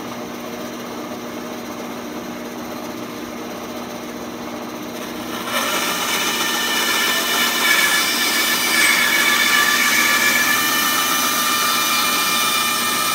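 A 12-inch, 1 HP band saw runs with a steady hum. About five and a half seconds in, its blade starts cutting lengthwise into a round wooden branch, and the sound turns louder and hissier with a high whining tone that holds through the cut.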